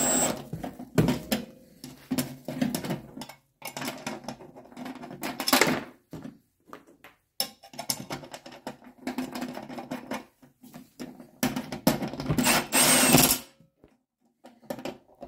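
Hands-on assembly noise: irregular clicks, clinks and rustling as the powder coating unit is fitted and bolted into its housing. A longer, louder stretch of rattling comes near the end.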